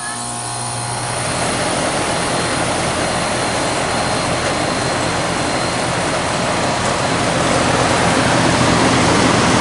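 Newly started 2022 Comfort-Aire 2.5-ton 14 SEER air conditioner's outdoor condensing unit running: the LG scroll compressor hums under the steady air noise of the condenser fan. The fan comes up to speed over the first second or two, and the sound grows a little louder again later on.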